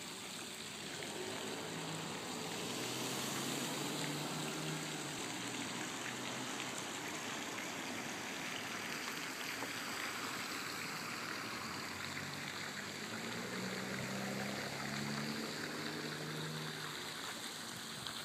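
Steady splashing rush of running water, even throughout. A faint low hum rises under it twice, for a few seconds each time.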